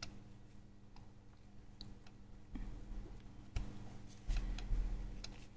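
Scattered soft clicks and handling noises as paracord is threaded and pulled through a small metal key ring, with a few dull low bumps a little past the middle.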